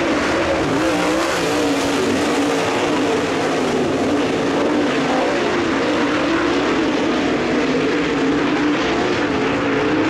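Several dirt late model race cars' V8 engines running at speed together, a steady drone whose pitch wavers up and down.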